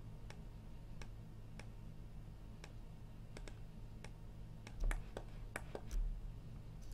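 Irregular computer mouse and keyboard clicks, two of them louder with a low thump near the end, over a low steady hum.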